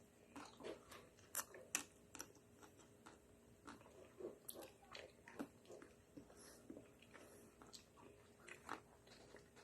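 Close mouth sounds of someone eating a Magnum ice cream bar: crunchy bites into the chocolate shell and wet chewing, in scattered sharp clicks, loudest about one and a half seconds in.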